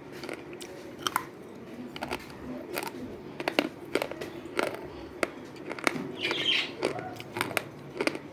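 Cello slate pencils being bitten and chewed: a run of sharp, irregular crunches, often several a second, over a steady low hum.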